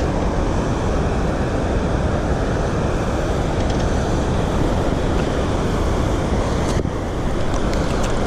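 Steady rushing of water pouring through a spillway, with a few faint clicks near the end.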